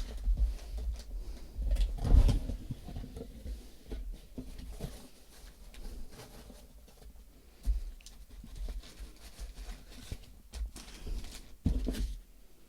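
Parcel packaging being handled and opened: scattered rustling with a few dull knocks, about two seconds in, near eight seconds and just before the end.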